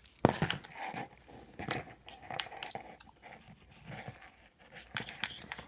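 Cardboard box and packaging crackling, rustling and tapping, with irregular sharp clicks.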